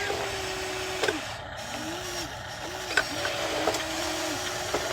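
Small electric motors of a Huina 1594 RC excavator whining as its functions are worked. The whine rises as a motor starts, holds, then drops as it stops, several times over, with sharp clicks in between.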